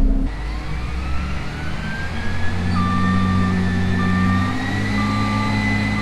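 A vehicle's engine running steadily, with a whine that slowly rises in pitch. From about three seconds in, a short electronic warning beep repeats about once a second.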